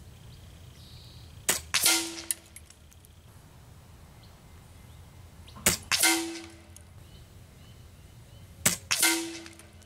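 Air Venturi Avenger .22 regulated PCP air rifle fired three times, a few seconds apart. Each shot is a sharp crack followed a fraction of a second later by a louder crack that rings out briefly.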